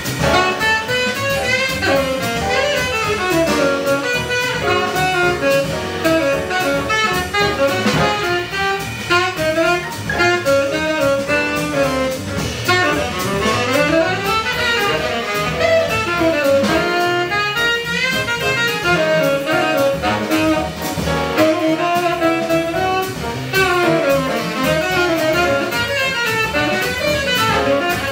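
A jazz quintet playing: a saxophone plays fast runs that rise and fall over double bass and a drum kit keeping steady time on the cymbals.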